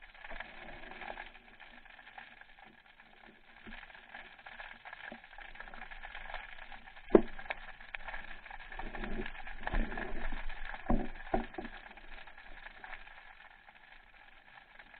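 Underwater ambience heard through a camera's waterproof housing: a steady faint hiss with scattered small clicks, one sharp click about seven seconds in, and a run of dull knocks and rumbles a couple of seconds later.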